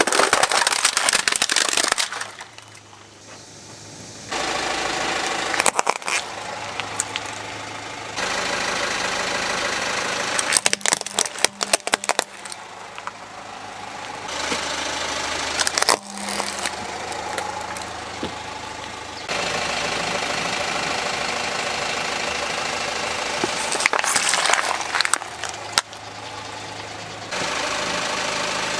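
A car's engine idling while its tyre rolls over plastic toys, with bursts of cracking and crunching plastic as they break, the loudest in the first two seconds and again about halfway through. The engine hum and background shift abruptly several times between takes.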